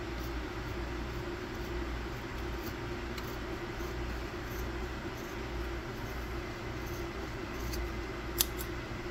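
Scissors snipping once, sharply, across a kerosene lamp wick near the end, over a steady low background hum.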